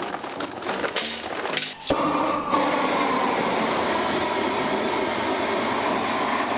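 Charcoal clattering into a metal chimney starter, then a propane weed-burner torch lights suddenly about two seconds in and runs with a steady loud hiss, firing into the chimney to light the charcoal.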